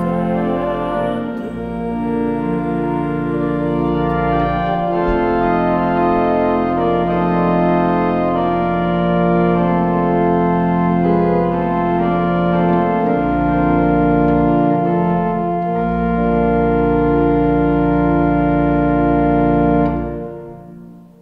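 Church organ playing a slow piece in sustained full chords over deep pedal notes, ending on a held chord released about twenty seconds in, its sound dying away in the church's reverberation.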